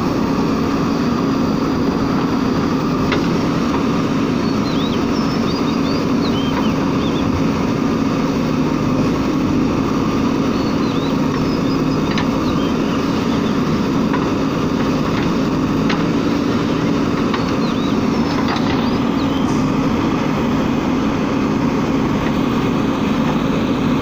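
JCB backhoe loader's diesel engine running steadily as the backhoe digs soil, a constant low drone.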